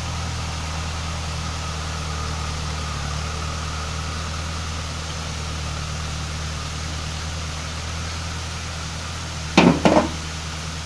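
Ford 5000 tractor's four-cylinder engine running steadily while it pulls a rotary tiller through the soil. Near the end, two sharp knocks close together: a chunk of stone or brick landing in a wheelbarrow.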